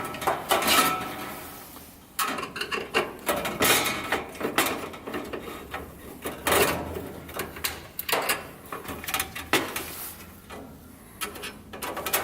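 Irregular clicks, scrapes and clunks of screws being taken out and a sheet-metal side trim panel being worked loose and lifted off a range.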